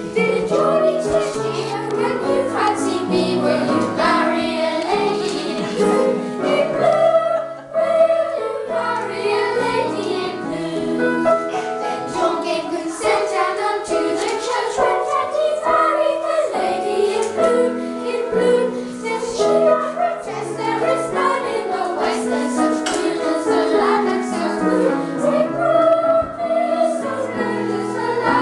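A small children's choir singing a song together, pausing briefly between phrases about seven seconds in.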